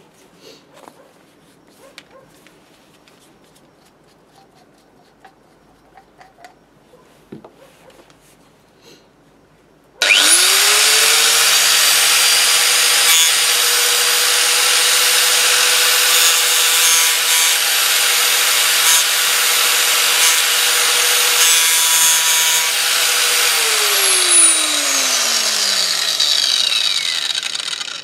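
Angle grinder fitted with a homemade grinding disc, pieced together from two cracked discs, on its first test run. About ten seconds in it starts with a rising whine and runs at a steady pitch while pressed against metal clamped in a vise. Near the end it is switched off and winds down with a falling whine.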